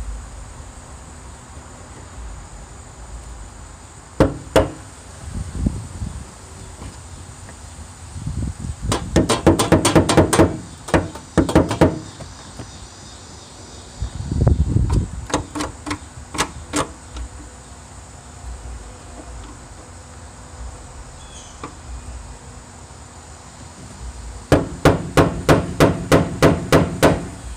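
Hammer striking a screwdriver against the rusted lock ring of a car's fuel tank sending unit, knocking it around to turn it past its stoppers. Sharp metallic taps come in bursts, with fast runs of several strikes a second near the middle and again near the end.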